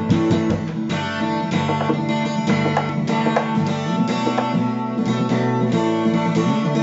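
Instrumental backing-track music: a quick run of short plucked notes, several a second, over held low notes.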